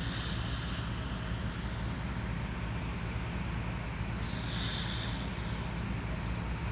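Corgi snoring in its sleep: a steady low drone, with a hissing breath about a second long at the start and a longer one a little past the middle.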